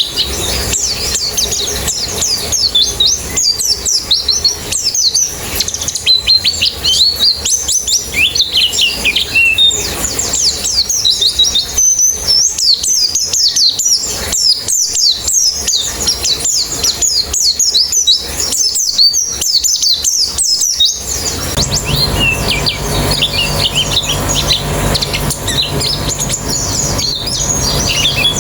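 A flock of white-eyes (pleci) chirping and twittering together: a dense chorus of fast, high notes with no pause. About two-thirds of the way through the background changes and a steady low hum comes in under the birds.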